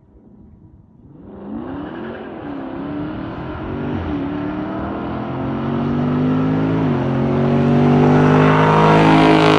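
Dodge Charger's 392 HEMI V8 (6.4-litre), fitted with a Mopar cold air intake, accelerating hard: the engine note climbs in pitch, drops back at two upshifts about 4 and 7 seconds in, and gets steadily louder to a peak near the end.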